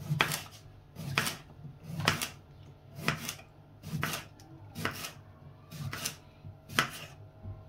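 Knife slicing a cucumber into rings, each cut ending in a crisp tap on the cutting board, about one cut a second.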